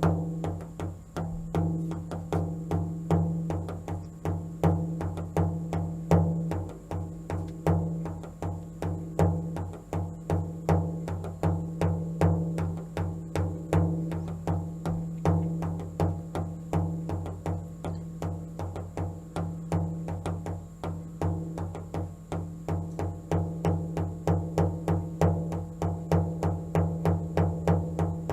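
A hand drum beaten in a steady, fast, even rhythm of several strokes a second, each stroke leaving a low ringing tone.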